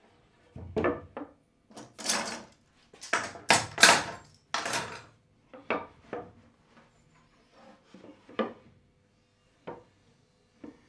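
Wooden boards being handled and set against a plywood corner-clamp jig: a cluster of wooden knocks and scraping slides in the first half, then a few single taps as the boards are nudged into a right angle.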